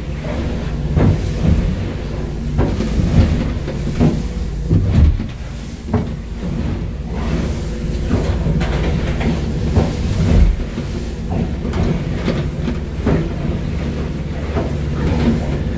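Fishing boat's engine running steadily under way, with irregular thumps of the hull pounding into choppy waves.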